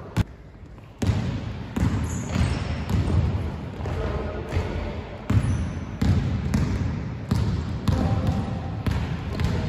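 A basketball dribbled on a hardwood gym floor: a run of steady bounces, about one every 0.7 seconds, starting about a second in. A single sharp knock comes just before the dribbling, and short high sneaker squeaks on the floor sound over it.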